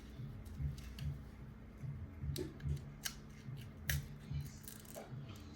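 Scissors snipping a few times as the wig is worked on, each snip a sharp click. Underneath is a soft, evenly repeating low beat.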